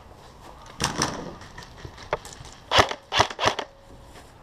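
Airsoft gunfire: a few irregular sharp cracks, the loudest three coming in quick succession late on.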